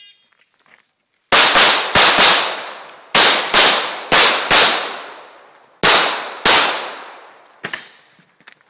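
Handgun fire on a USPSA stage: ten shots fired as five quick pairs, each shot trailing off in a long echo. A few faint pops follow near the end.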